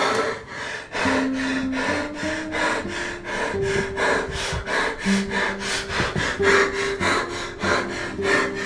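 Tense film score of slow, held low notes stepping in pitch, under rapid, rhythmic, rasping heavy breathing at about four strokes a second.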